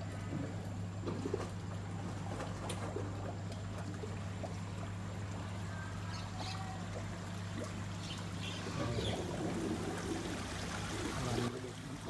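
Koi pond waterfall starting up after its pump is switched on: water splashing and trickling over the stone tiers into the pond, with a steady low hum that changes about nine seconds in.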